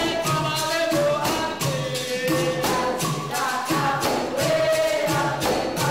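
Capoeira Angola music: voices singing together over a steady hand-percussion beat of about three strokes a second.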